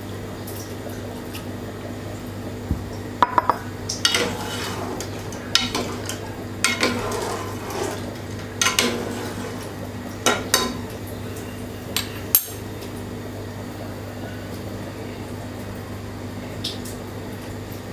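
A metal utensil clinking and scraping against a cooking pot in a dozen or so irregular knocks as milk is added to simmering soup and stirred, over a steady low hum.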